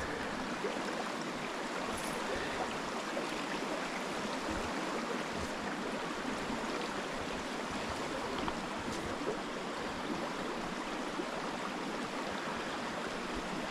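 Small creek running shallow over a rocky bed: a steady, even rush of flowing water.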